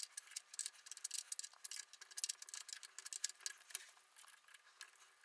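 Faint, irregular clicking and ticking from a tap being turned by hand into a drilled hole on a lathe, starting 5/16-18 threads. The clicks thin out after about four seconds.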